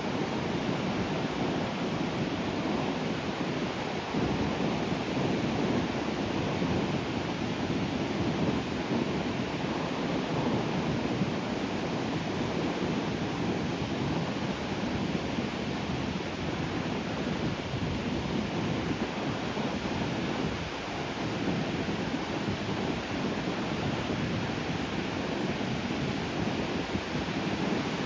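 Sea waves breaking gently on the shore: a continuous rush of surf that swells and eases slightly as the waves come in.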